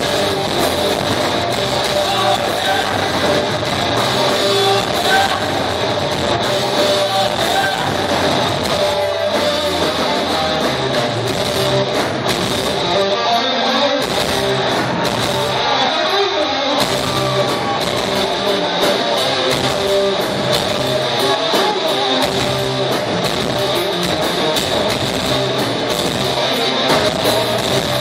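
Live rock band playing electric guitars, bass and drums at full volume, heard from the audience floor of a concert hall.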